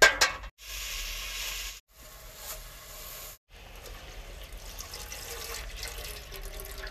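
Milk poured from a plastic packet into boiling tea in an aluminium pot, a steady trickle and splash over the bubbling liquid. It follows a few short cut-together bits, the first a brief metallic clatter.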